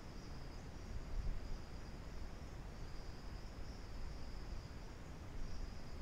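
Steady background noise: a high-pitched whine that drops out briefly about two and a half seconds in, over a low rumble.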